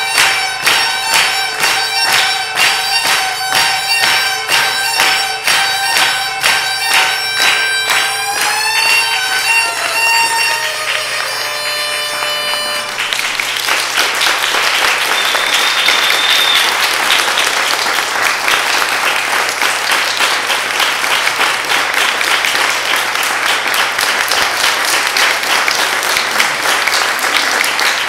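Traditional folk tune with a steady drone under the melody, the audience clapping along in a steady beat. About 13 seconds in the tune winds down with its pitch sliding lower and stops, and the audience breaks into applause.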